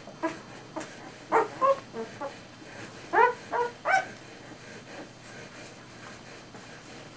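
Newborn puppy squealing: a series of short, high, pitched cries in two clusters, about a second and about three seconds in.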